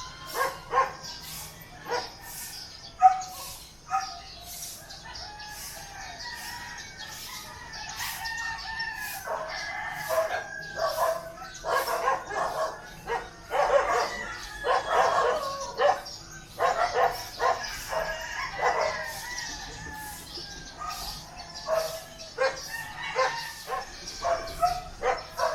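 Roosters crowing, several long calls overlapping through the middle. Dogs bark in short calls at the start and again near the end.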